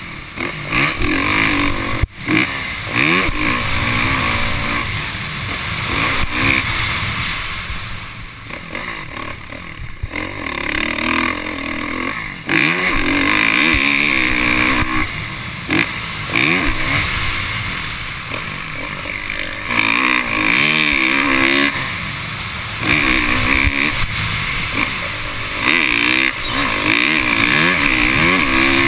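Motocross dirt bike engine revving hard and backing off over and over, its pitch climbing and dropping every few seconds as the rider accelerates and shuts off the throttle, with rushing wind noise over it.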